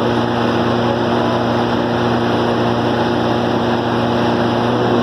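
Cummins 6CT inline six-cylinder diesel engine running at a steady speed, a constant hum of even tones that does not change.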